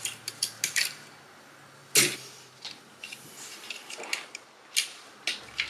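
Scattered light clicks and taps of small controller parts being handled and set down on a work surface, the sharpest about two seconds in.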